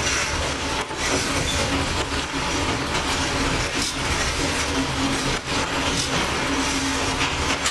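Kominato Railway KiHa 200 diesel railcar running along the line: its DMH17C diesel engine drones steadily under the rumble of wheels on rail, with a hum that comes and goes.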